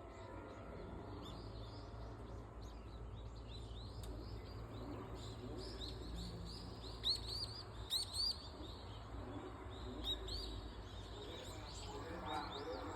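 Small birds chirping in short, repeated high chirps, busiest in the middle, over a low steady hum.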